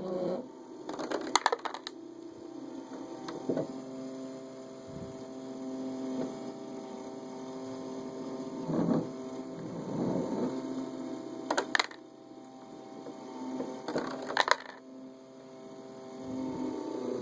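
Automatic dog feeder's small motor humming steadily, with a few sharp clicks from its mechanism spread through the run.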